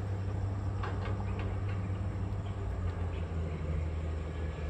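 Steady low rumble of distant traffic, with a few faint bird chirps about a second in.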